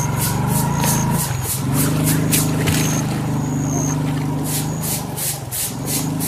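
A motor engine running steadily with a low hum that dips and shifts pitch twice, under a run of quick, high-pitched clicking pulses.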